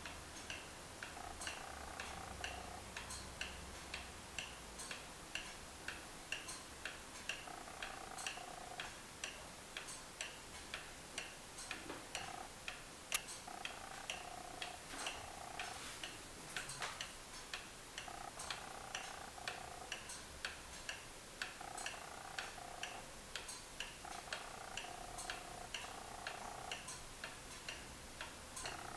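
Vintage wooden regulator wall clock ticking steadily, about two even ticks a second from its pendulum escapement. One sharper click sounds about halfway through, and a faint tone comes and goes in the background.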